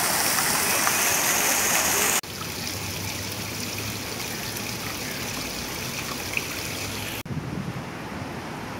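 Rows of fountain jets splashing into a long shallow pool, a loud even rush of water. About two seconds in it cuts abruptly to the quieter splashing of a single small fountain jet falling into a stone basin, and near the end it cuts again to a softer, duller background.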